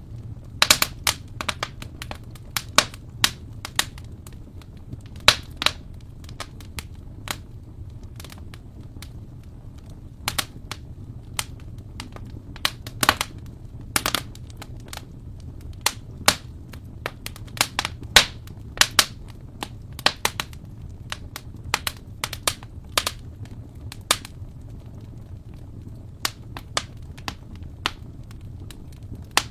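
Wood fire burning in an open fireplace: sharp, irregular crackles and pops, several a second at times, over a steady low rumble of the flames.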